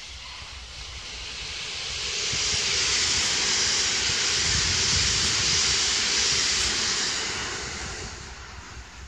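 Electric passenger train passing close by, its wheels running on the rails with a loud rushing hiss and a rumble beneath. The sound swells over about two seconds, holds, and fades away near the end.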